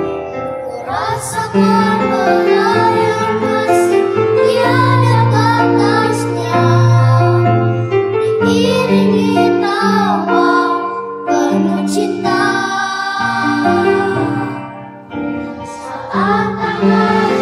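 A small group of boys singing a song in Indonesian into microphones, with piano accompaniment.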